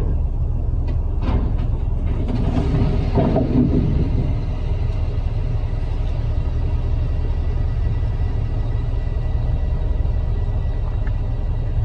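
A heavy truck's engine running with a deep, steady rumble.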